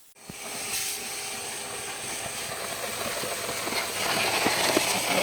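Small pressure washer spraying water through an air-conditioner outdoor unit's condenser fins to clean out lint and dirt: a steady hiss of spray that sets in right at the start and grows gradually louder.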